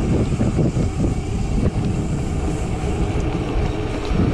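Wind buffeting the microphone of a GoPro on a moving bicycle: a loud, steady rumbling rush with no break.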